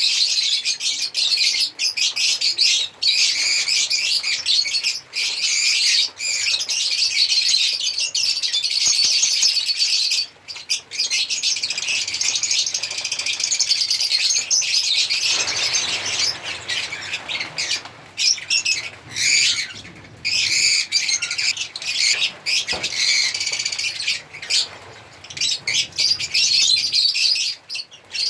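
African lovebirds chirping and chattering in a dense, shrill, continuous chorus, broken by a few short pauses.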